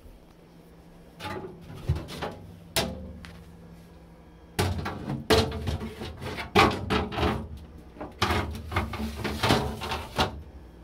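Knocks and clatters of refrigerator drawers, shelves and containers being moved and set down during cleaning. A few sharp knocks come about a second in, then a busier run of clattering from about halfway through until near the end.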